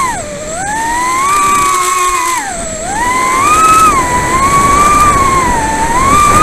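Leader 120 mini quadcopter's brushless motors whining as they spin Gemfan 2540 props on a 3S battery. The pitch rises and falls with the throttle and dips sharply twice, near the start and about two and a half seconds in, over a steady hiss of rushing air.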